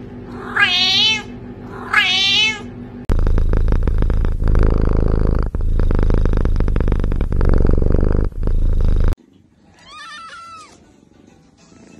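A cat meowing twice, each meow long and wavering. Then a kitten purring loudly and steadily for about six seconds, cutting off suddenly, followed near the end by a kitten's faint mew.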